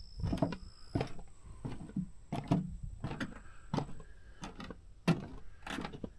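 Footsteps on a wooden boardwalk: a walking pace of short knocks on the planks, about two steps a second.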